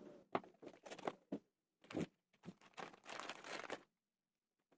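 Faint crinkling of plastic parts bags being handled, in a string of short crackles with a longer stretch just after three seconds in.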